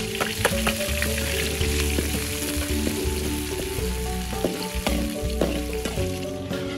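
Sliced garlic and chilies sizzling in hot oil in a large aluminium wok, with a metal spatula scraping and clinking against the pan as they are stirred.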